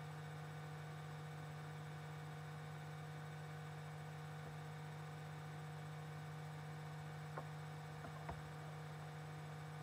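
Steady electrical hum, with two small clicks near the end.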